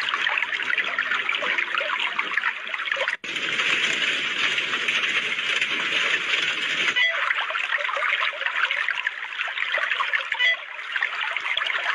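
Rushing, splashing water noise. It cuts off abruptly about three seconds in and again about seven seconds in, starting again each time with a slightly different tone.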